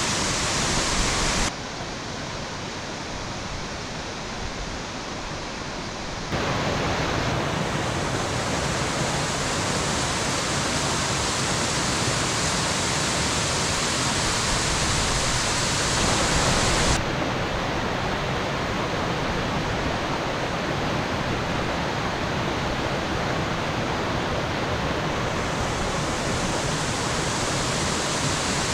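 Waterfall rushing steadily. About a second and a half in it drops quieter and duller, comes back fuller around six seconds, and shifts again in tone about seventeen and twenty-five seconds in.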